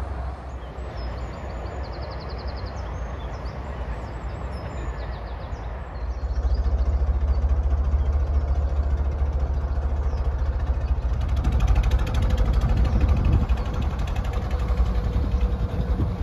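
Narrowboat diesel engine running at a slow, steady tick-over, a low rumble that gets louder about six seconds in.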